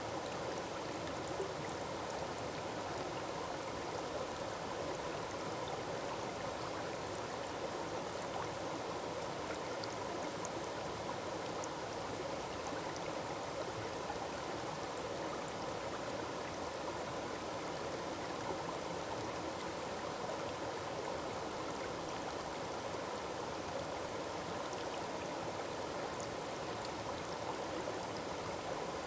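Forest waterfall rushing steadily, a constant wash of falling water with faint splash ticks over it.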